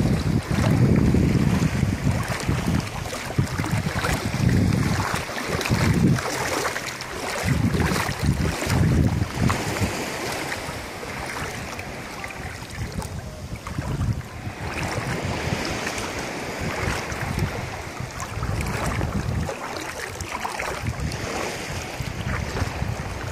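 Wind buffeting the microphone in irregular gusts, easing about halfway through, over a steady hiss of shallow sea water lapping at the waterline.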